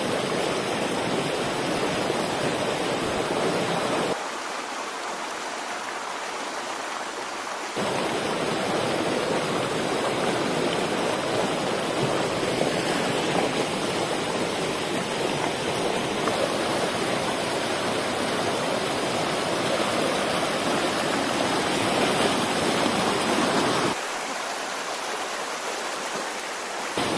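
Shallow rocky stream flowing, a steady rush of running water. Twice, about four seconds in and again near the end, it drops quieter for a few seconds with its low rumble gone, switching abruptly.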